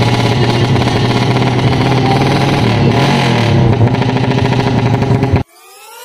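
Suzuki Smash 115's single-cylinder four-stroke engine running steadily and loudly through an open titanium exhaust pipe. About five seconds in it cuts off suddenly, and faint rising electronic sweeps follow.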